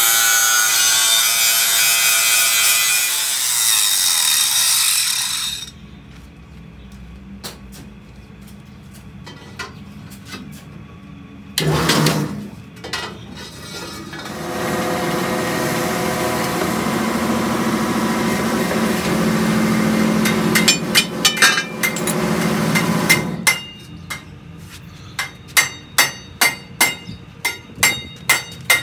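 Angle grinder cutting a steel wheel-rim band, stopping about five seconds in. Later a machine runs steadily for several seconds, and near the end come sharp metal knocks, about two a second.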